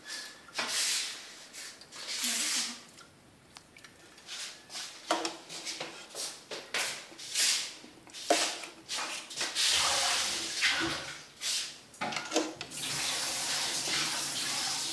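Hot soup broth in a metal pot being stirred and ladled, liquid sloshing and splashing in short irregular bursts, with a steadier rushing hiss over the last couple of seconds.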